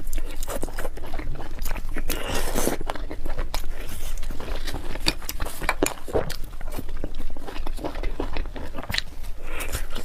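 Close-miked eating: a person biting and chewing fried eggs and noodles, with a dense, irregular run of small crunches and wet mouth clicks.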